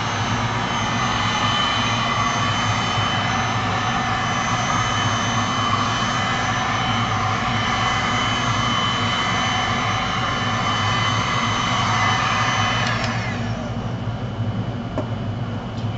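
Handheld electric heat gun blowing steadily, a rush of air with a constant whine, passed over freshly poured epoxy art resin to pop its air bubbles. It is switched off about 13 seconds in and the sound falls away.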